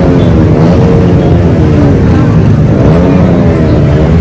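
Motorcycle engine running steadily at low revs, with the voices of a surrounding crowd.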